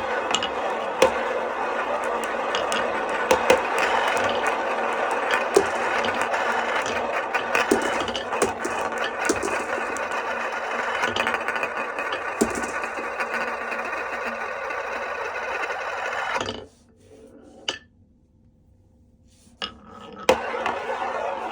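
Glass marbles rolling and clattering along a HABA wooden marble run: a steady rolling rumble dotted with sharp clicks and knocks. About three-quarters of the way through it falls away for a few seconds, with a single click, then picks up again.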